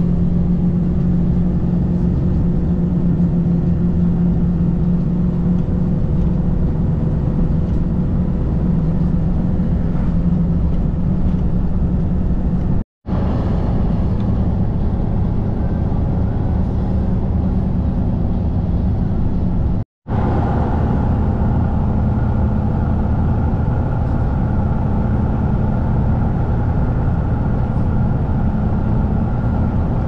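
Road and engine noise inside a moving vehicle's cabin at highway speed: a steady low drone with a faint hum. It cuts out abruptly twice, about 13 and 20 seconds in.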